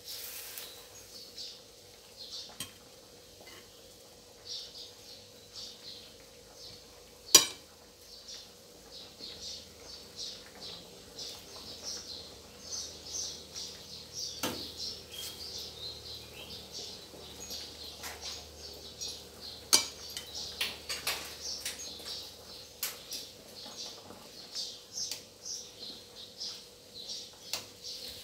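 Metal tongs clinking and scraping against a stainless steel wok as vegetables are turned in boiling water, in scattered sharp clinks with two loud knocks, about seven seconds in and about twenty seconds in.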